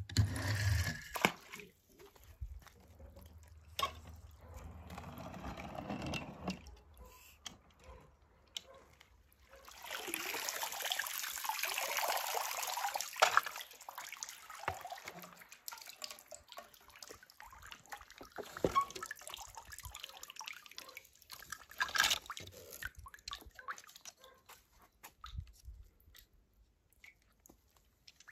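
Water splashing, sloshing and dripping as toy cars are dropped into it and moved through it, with scattered small clicks. A short loud splash comes at the start, and a longer stretch of steady splashing about ten seconds in.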